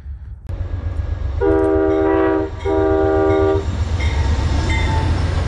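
Locomotive air horn sounding two blasts of about a second each, a chord of several tones, over the steady low rumble of a moving train. The train sound cuts in abruptly about half a second in.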